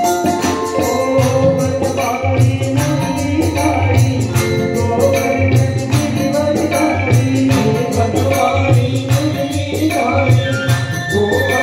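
Live Indian devotional song (bhajan): a man singing through a microphone over electronic keyboard, with tabla and percussion keeping a steady beat.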